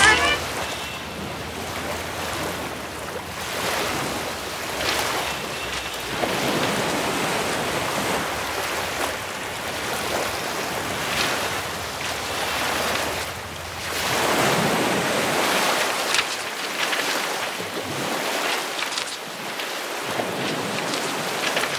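Sea waves washing in, a rushing noise that swells and falls back every few seconds.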